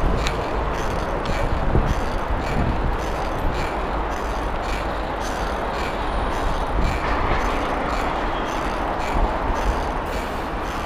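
Wind rumbling on the microphone and street traffic noise while riding a bicycle, with a faint regular ticking about twice a second.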